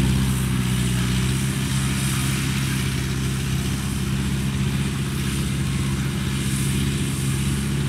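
Engine of a tracked rice-hauling carrier running steadily while carrying a full load of rice sacks, an even, unbroken drone.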